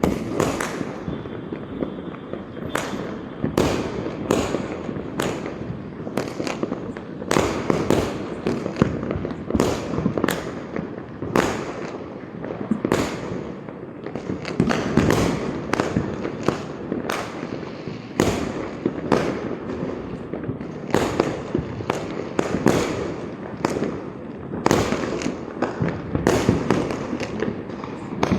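Diwali firecrackers and fireworks going off all around: a dense, unbroken run of sharp bangs, several a second at times, over a continuous rumble of more distant explosions.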